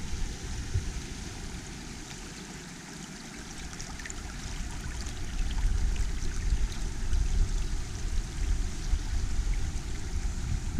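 Creek water running over rocks, with a low rumble of wind on the microphone that eases a second or two in and builds again toward the end.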